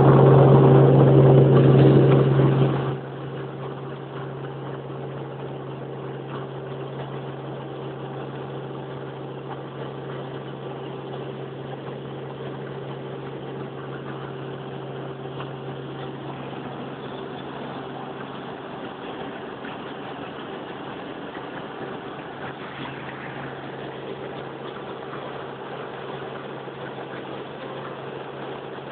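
Helicopter engine and rotor drone, a steady, even-pitched hum. It is very loud at first and drops sharply about three seconds in, then stays steady.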